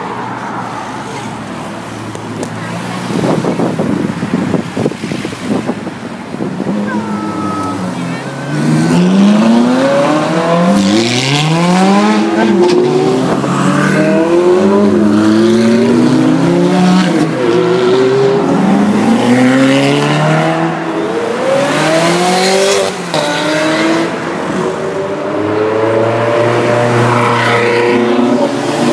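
Several Ferrari sports cars accelerating past one after another, their engines rising in pitch again and again as they rev and shift up. It gets much louder about eight seconds in and stays loud.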